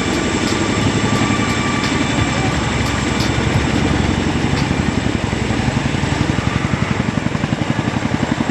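Boeing CH-47 Chinook tandem-rotor helicopter flying low, its rotors making a rapid, steady beat of blade thuds over a thin high whine. The blade beat grows sharper and more pulsing in the second half.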